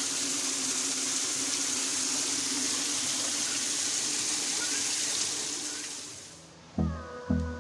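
Water streaming steadily from a homemade PVC-pipe rain shower head, fading away about six seconds in. Music with a steady beat starts just before the end.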